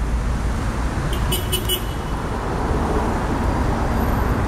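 Rush-hour city street traffic: a steady rumble of car engines and tyres from slow-moving, backed-up cars close by. About a second in there is a brief cluster of short, high-pitched clicks.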